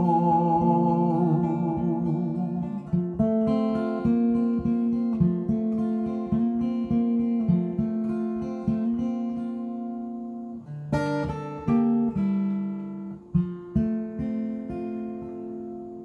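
Acoustic guitar playing a picked instrumental ending to a song, single notes and chords ringing one after another, with a strummed chord about eleven seconds in, and the whole fading toward the end. For the first three seconds, the singer's last note is held over it with a wavering pitch.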